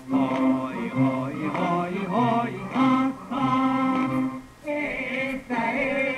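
Voices singing a tune with musical accompaniment.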